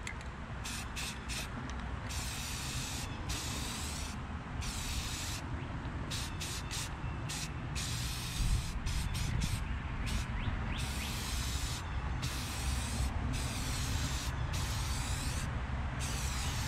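Aerosol can of Rust-Oleum Trim and Bumper paint spraying onto a plastic car grille, hissing in many short stop-start bursts, each up to about a second and a half long.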